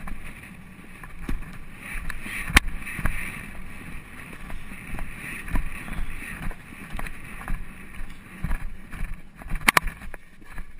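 Polo pony cantering on grass, heard from the saddle: irregular low hoofbeat thumps and small clicks from the moving tack and mallet. Over this there is a steady rushing haze, and two sharp clacks stand out, one about two and a half seconds in and another near the end.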